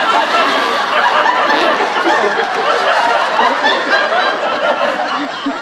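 Studio audience laughing: a sustained wave of many voices that begins to fade near the end.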